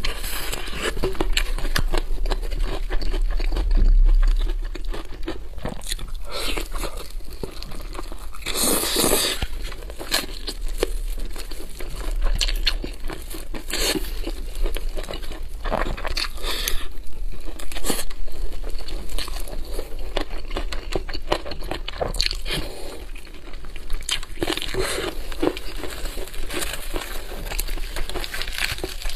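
Close-miked crunching and chewing of crispy deep-fried chicken batter, with crackling as the battered pieces are torn apart by hand. The crunches come irregularly, the loudest about nine seconds in.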